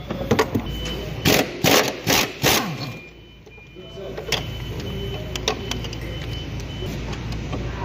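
Workshop hand-tool noise on car parts: a quick run of sharp metallic knocks and clicks over the first few seconds, then a steady low hum with a few scattered clicks.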